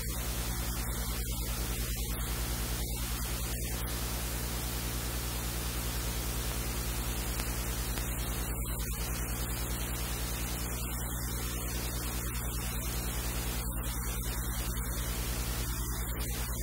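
Steady static hiss with a low electrical hum underneath; no other sound stands out.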